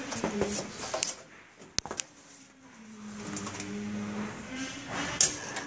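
Alpine automated truss saw machinery running: a steady motor hum with scattered mechanical clicks and clacks. It goes quieter for a moment about a second in, with two sharp clicks, then the hum comes back.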